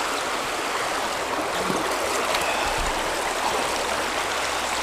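Stream water running steadily, an even rushing and gurgling flow.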